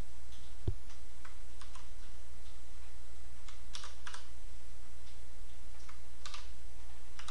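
Computer keyboard keys pressed a handful of times in scattered single clicks, as keyboard shortcuts are entered, over a steady low hum.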